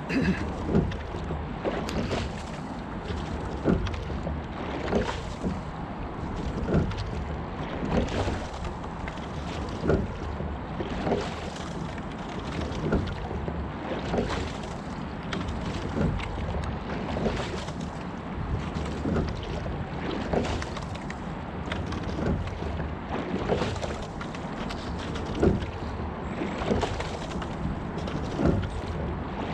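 A single scull being rowed: the sculls knock and splash in a steady rhythm, about one knock every second and a half, over a continuous rush of water along the hull and wind on the microphone.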